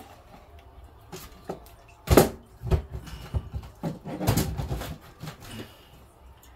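Kitchen cupboard and items being handled while a bag is fetched: a series of knocks and clatters, the loudest about two seconds in and another cluster around four seconds.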